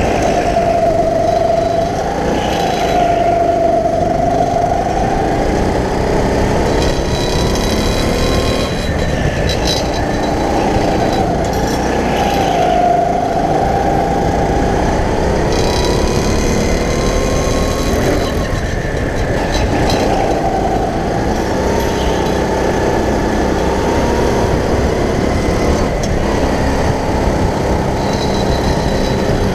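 Go-kart motor running hard during laps, its pitch falling and climbing back again and again, over a steady loud rumble.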